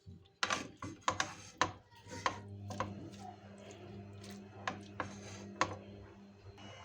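Irregular sharp clicks and knocks of kitchen utensils, most of them in the first couple of seconds. A steady low hum comes in about two seconds in.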